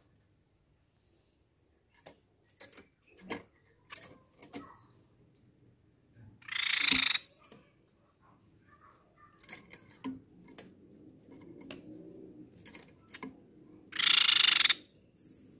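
Crescent-chested babbler giving two short, harsh trilled calls, one about seven seconds in and one near the end, with scattered light clicks and taps in between.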